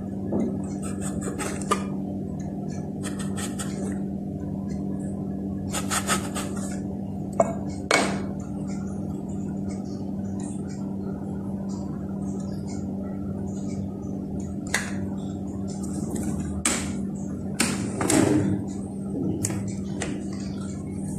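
Steel tumbler knocking and scraping on a stone rolling board as it presses rounds out of rolled maida dough, then light taps and rustles of hands peeling the dough scraps off the board. A steady low hum lies underneath throughout.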